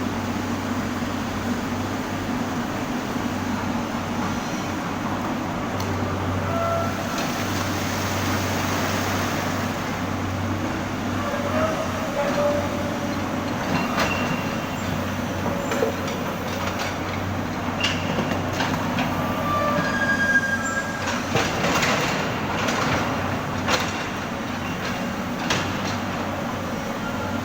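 Excavator working: a steady diesel engine hum, with short high metallic squeals and clanks that grow more frequent in the second half.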